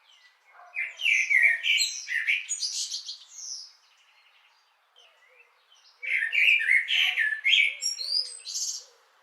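A blackbird singing two song phrases, one about a second in and one about six seconds in, each a quick run of varied whistled notes that climbs into higher twittering towards its end.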